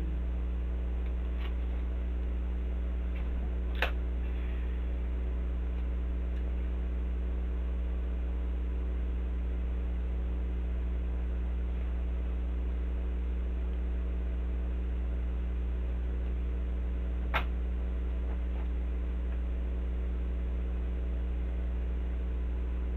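Steady low electrical hum with no speech, broken by two short sharp clicks about thirteen seconds apart.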